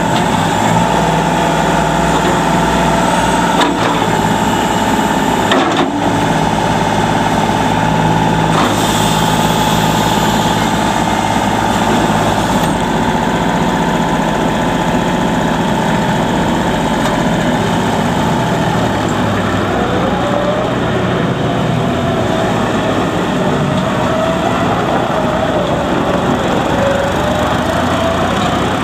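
Kubota L35 tractor loader backhoe's 35 HP Kubota diesel engine running steadily, with a few short knocks in the first third and a wavering whine in the second half.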